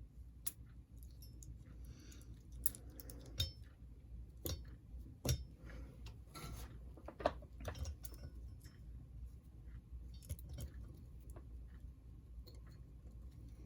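Irregular small clicks and taps of tiny metal and plastic model-locomotive parts being handled and fitted by hand, a few sharper knocks in the middle, over a faint low hum.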